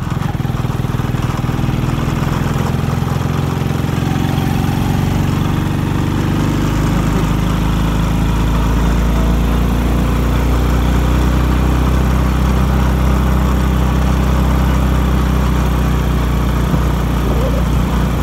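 Small motorcycle engine running steadily while riding along a concrete road. Its low rumble grows stronger about a third of the way in.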